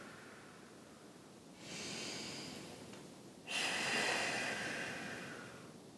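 A woman breathing audibly while holding a yoga pose: a soft breath about one and a half seconds in, then a longer, louder breath from about three and a half seconds that slowly fades.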